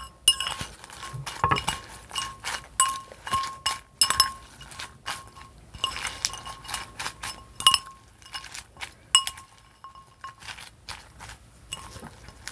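A metal fork clinks against a glass bowl as it tosses a salad. The clinks are repeated and irregular, and each one rings briefly.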